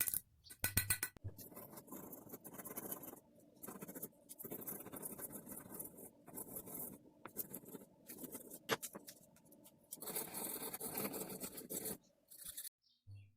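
Faint scraping and rasping strokes on metal in irregular runs with short breaks, as the steel knife guard is worked by hand, with a few light clicks near the start and one sharp click about two-thirds through.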